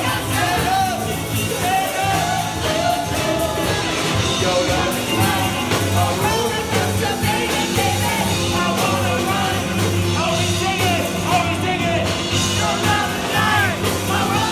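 A live rock band playing a song, with a lead vocal singing over the band.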